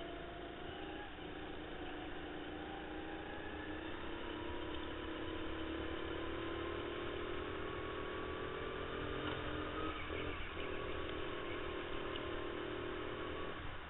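Racing kart heard from onboard, its motor running hard at speed. Its pitch climbs slowly for several seconds, dips briefly about ten seconds in, then drops again near the end.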